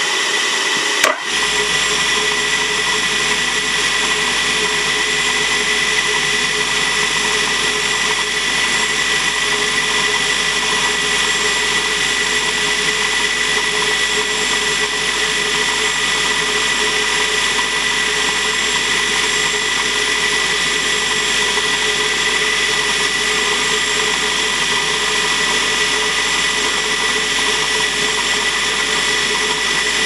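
Drill press switched on within the first second, then running steadily with a constant hum. It spins an edge burnisher that is pressed against the edge of a leather knife sheath.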